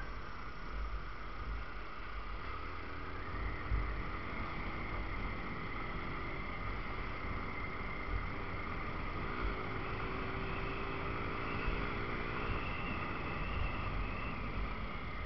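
Yamaha Factor motorcycle's single-cylinder engine running while riding. The engine note comes up a few seconds in and fades again near the end, under low wind buffeting on the microphone.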